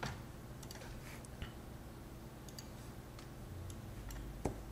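Faint, scattered computer mouse clicks over a steady low hum, with a louder knock near the end.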